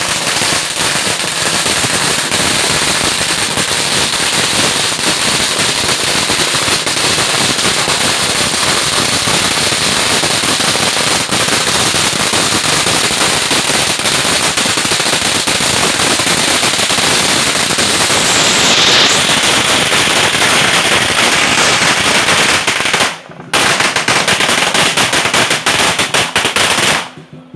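A long string of firecrackers going off in a dense, rapid crackle of bangs. It breaks off briefly about 23 seconds in, then starts again and stops just before the end.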